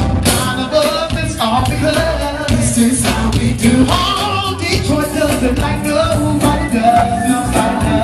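Live funk band playing with a lead voice singing over a steady drum beat.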